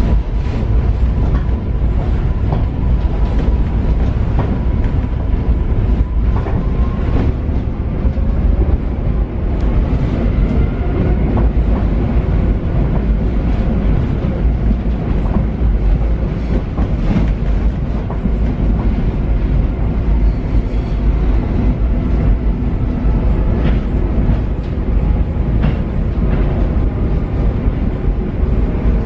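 Paris Metro MF 88 train running on Line 7bis, with a steady rumble and scattered clicks from the wheels on the track. A whine rises in pitch around ten seconds in.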